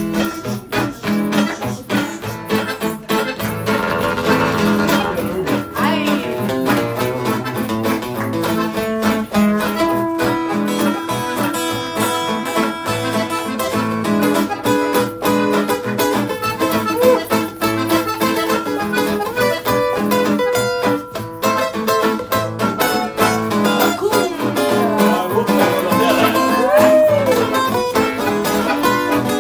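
Live cumbia played as an instrumental passage with no singing: a piano accordion holds the melody over a strummed acoustic guitar.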